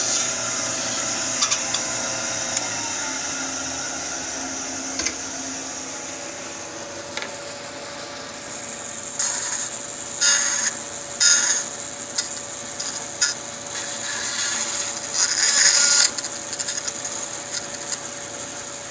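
Bandsaw running, its blade cutting into wood in several short passes about halfway through, as notches are sawn and cleaned up. In the first few seconds another machine's hum winds down.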